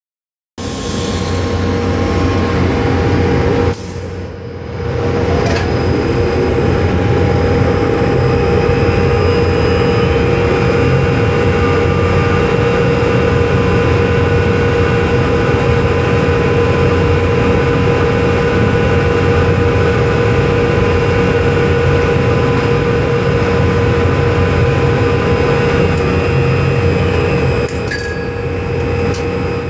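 Drilling rig floor machinery running while casing is run: a loud, steady mechanical drone with a constant hum, dipping briefly about four seconds in, with a few sharp knocks.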